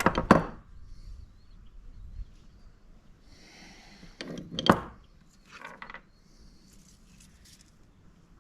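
Hand tools clattering and scraping on metal during a valve-clearance adjustment on the Yamaha Warrior 350's single-cylinder engine: a sharp clatter right at the start, another about four and a half seconds in, and softer scrapes between.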